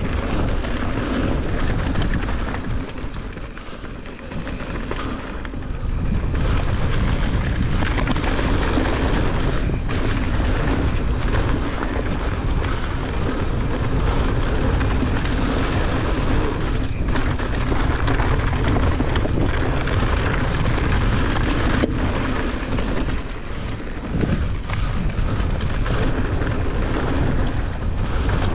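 Mountain bike tyres rolling fast over loose gravel and rock, with steady wind buffeting the microphone and scattered knocks from bumps in the trail. The noise eases off briefly about four seconds in, then picks up again.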